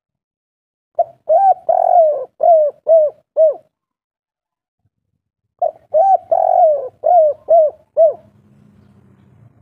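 Spotted dove (tekukur) of the 'kuk 3' song type cooing: two phrases of six or seven short coos, each note rising and falling, a couple of seconds apart.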